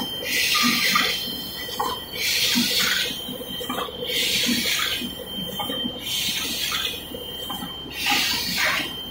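Automatic paper food-box forming machines running: a sharp hiss of venting air about every two seconds, five times, over a faint steady whine and soft low knocking from the mechanism.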